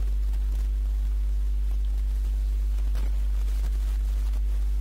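Steady low electrical mains hum in the recording, with a few faint clicks around the middle.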